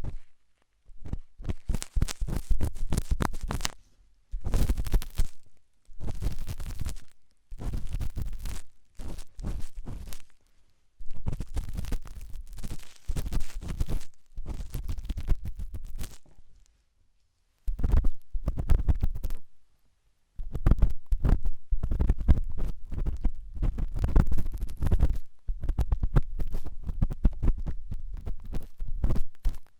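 Intense ASMR ear cleaning: an ear pick scraping hard inside an ear, heard as dense crackling scratches with a deep rumble. It comes in strokes of one to three seconds with short silent pauses between them.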